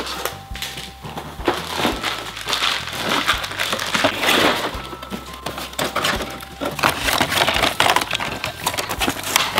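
A toy train set's packaging being opened and handled, rustling and crackling with many small clicks, over quiet background music.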